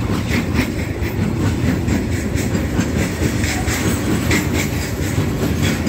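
Freight train wagons rolling past right beside the microphone: steel wheels rumble steadily on the rails, with a run of sharp, uneven clicks several times a second as the wheels pass over the track.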